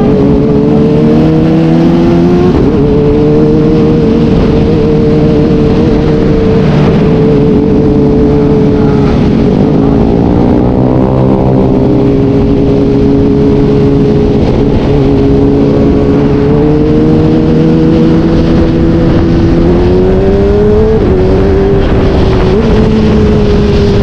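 Sport motorcycle engine heard while riding, with wind rush over it. The engine revs climb and drop at a gear change near the start, hold fairly steady, then climb and shift again about 21 seconds in. Another vehicle's engine passes, rising and falling in pitch, about halfway through.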